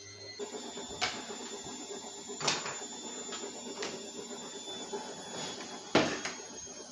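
Knocks and clunks of a stripped-down flat-screen TV being moved and handled, with a faint steady hum and high whine underneath. The loudest knock comes near the end.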